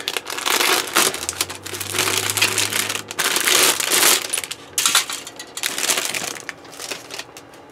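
Clear plastic bag crinkling and plastic model-kit sprues clattering as they are handled and set down on a pile of other sprues. It dies down near the end.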